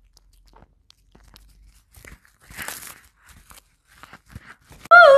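Cat gnawing and tearing at a chunk of soft white food: faint scattered crunches and small tearing clicks, with a louder tearing rasp a little under three seconds in. Right at the end a loud, wavering pitched call cuts in suddenly.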